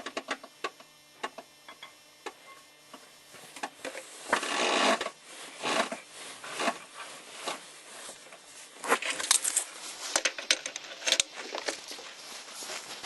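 Car being let down off a jack: irregular metallic clicks and knocks, with a few longer scraping creaks.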